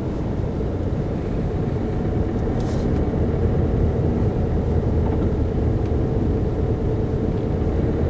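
Car engine and road noise heard from inside the cabin while driving slowly: a steady low rumble with a faint hum, growing slightly louder through the stretch.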